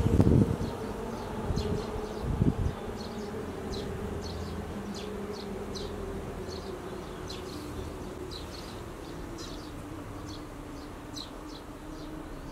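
An insect buzzing steadily close by, its drone slowly sinking in pitch. A few low thumps come in the first three seconds, and faint short high chirps sound throughout.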